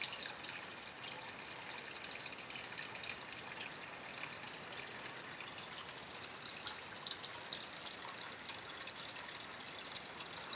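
Water trickling and splashing steadily into a fish tank, a continuous crackling patter of falling water.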